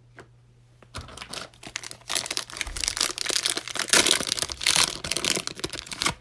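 Cellophane wrapper of a trading-card cello pack being torn open and crinkled by hand: a dense crackling that starts about a second in and is loudest in the second half.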